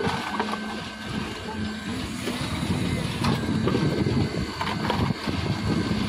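Engine of a concrete mixer running steadily, with scraping and clinks of a hoe and iron pans as wet concrete is scooped from the mixer's tray.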